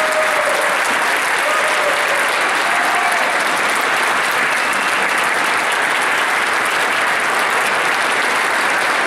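Large audience applauding steadily in a standing ovation, with a few short calls rising above the clapping in the first few seconds.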